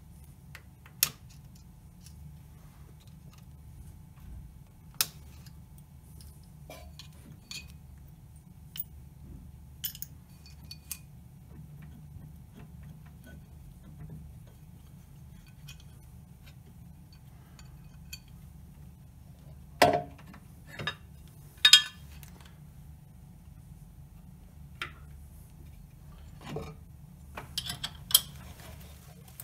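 Sparse metallic clicks and clinks as the change gear and its nut are worked loose and lifted off a Weiler Praktikant lathe's gear train, with louder clanks about two-thirds of the way through and a quick run of clicks near the end.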